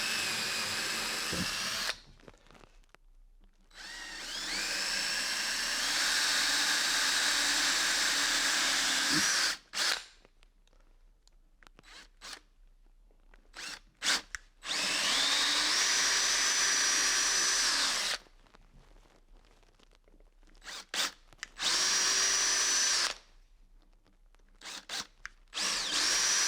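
Power drill boring a series of pilot holes for screws into a timber gate. The motor runs for a few seconds at a time, about five times, and stops between holes, with short trigger blips in the pauses. It winds up in pitch as one of the runs starts.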